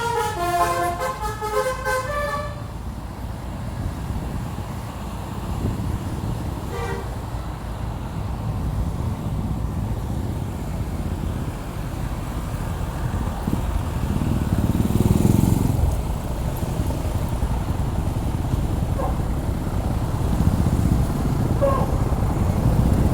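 Telolet musical air horn on a Tunggal Jaya bus playing a quick melody of changing notes, cutting off about two seconds in. A steady low engine and road rumble follows, swelling for a couple of seconds around the middle and again near the end, with a few faint short tones.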